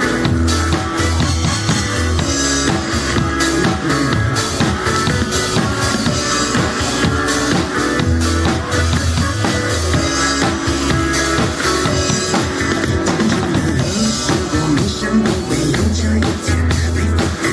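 Pop-rock music played by a band, with drum kit, electric guitar and bass, and little or no singing.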